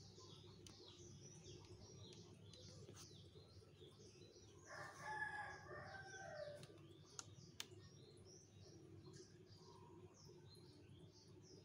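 A rooster crows once, a call of about two seconds that falls at the end, about halfway through. Small birds chirp constantly throughout, and two sharp clicks follow the crow.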